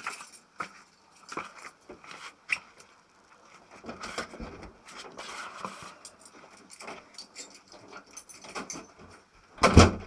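Irregular taps and clicks close to the microphone, with a noisier rustling stretch about four to six seconds in and a louder thump just before the end.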